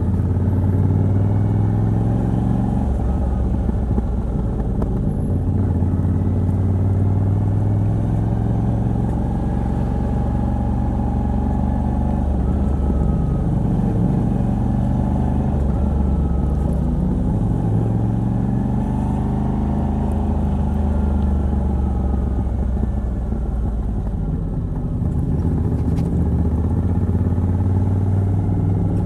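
Moto Guzzi V85TT's air-cooled transverse V-twin, on a stock exhaust with a decat pipe, running under way. The revs rise and fall several times as the rider works the throttle and gears.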